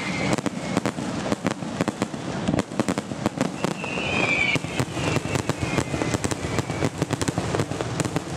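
Aerial fireworks going off: a rapid, dense run of sharp bangs and crackles, with a whistle about four seconds in.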